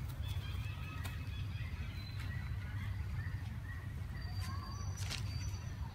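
Outdoor ambience: a steady low rumble with faint, short high chirps and whistles from birds, and a few light clicks.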